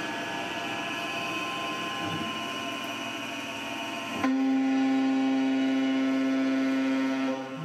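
CNC mill spindle spinning a 3/8-inch two-flute carbide end mill at 8000 rpm, with the hiss of coolant spray. About four seconds in, the end mill bites into the aluminium plate for a roughing face cut, and the sound jumps louder into a steady pitched hum, which dips briefly near the end.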